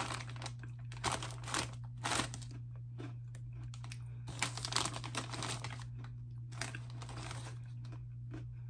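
Crinkly snack bag of cheddar Cheetos pretzels rustling in bursts as a hand reaches in and picks out pieces, with crunching of the hard pretzels being chewed. A steady low hum runs underneath.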